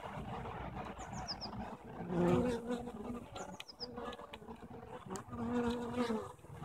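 Honeybees buzzing around a hive, with single bees flying close past in a wavering hum that swells about two seconds in and again near the end.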